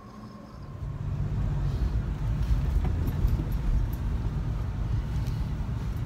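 A car's steady low engine and road rumble, heard from inside the cabin, comes in about a second in. Before that there is quieter room tone with a faint whine.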